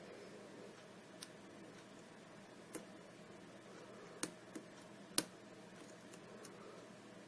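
Lock picking in a Sargent mortise cylinder held in a false set: a pick working the pin stacks, giving about seven scattered small clicks, the sharpest a little after five seconds in.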